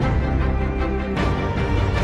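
Background music: a dramatic orchestral score with a heavy low end, changing chord about a second in.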